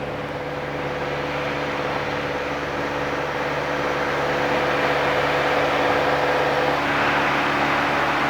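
Piper PA-28-180's four-cylinder Lycoming O-360 engine and propeller droning steadily in cruise flight, heard inside the cabin. Near the end a steady tone drops out and the rushing noise gets a little brighter and louder.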